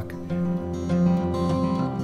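Background music led by an acoustic guitar, playing held notes.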